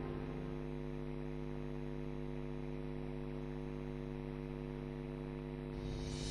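Steady electrical mains hum with a stack of overtones, and no programme sound over it.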